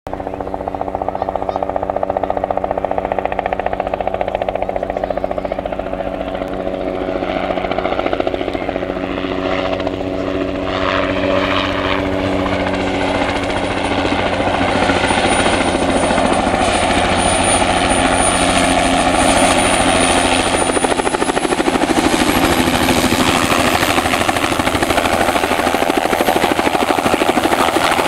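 Bell 206 JetRanger helicopter approaching and coming in to land: the steady beat of its two-bladed main rotor grows louder as it nears. About halfway through the high whine of its Allison 250 turbine engine comes in, rising in pitch a few seconds before the end.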